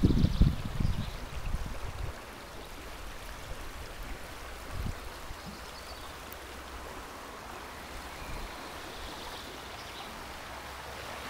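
Shallow river running over stones and gravel, a steady rush of water. A burst of low thumps on the microphone in the first couple of seconds, and one more about five seconds in.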